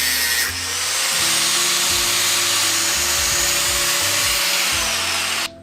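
Angle grinder running on steel with a steady, high hiss, briefly dipping about half a second in and stopping abruptly near the end. Background music plays underneath.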